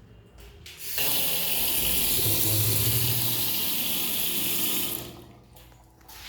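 Water gushing hard from a bathroom fitting for about four seconds, starting suddenly and tailing off.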